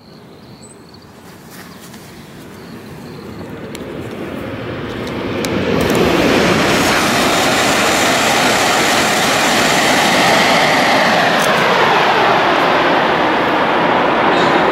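E5 series Shinkansen passing at high speed. A rushing roar builds steadily over about six seconds, then holds loud, with a tone in it that drops in pitch as the train goes by.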